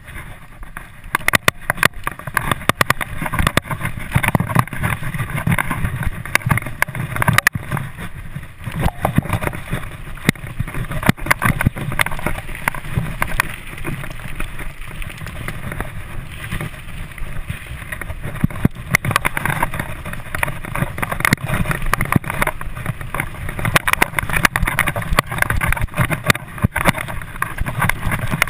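Mountain bike ridden fast down a dirt forest singletrack: a continuous rumble of tyres on the trail and rushing noise on the microphone, broken by frequent sharp rattles and knocks as the bike jolts over bumps.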